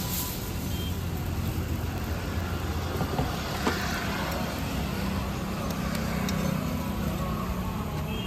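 Steady low rumble with even background noise. Two sharp metal clicks a little over three seconds in come from a steel spatula scraping and tapping a flat griddle where chakuli pancakes are cooking.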